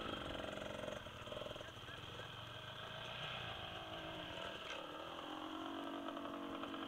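Dirt bike engines idling, their pitch wavering in the first second, then one settling into a steady idle note about five seconds in.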